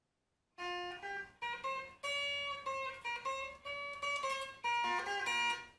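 Intro music: a short melody of plucked guitar notes, one after another, starting about half a second in.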